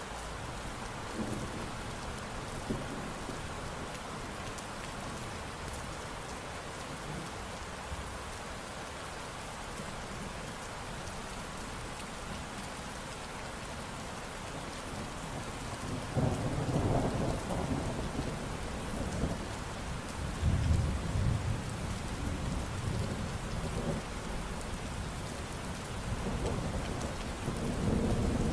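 Steady rain falling, with thunder rumbling in low swells from a little past halfway, loudest about 17 and 21 seconds in and building again near the end.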